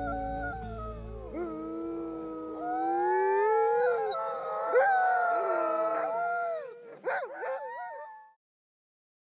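A pack of sled dogs howling together, several overlapping voices rising and falling in pitch, breaking into a few short yips about seven seconds in before stopping abruptly.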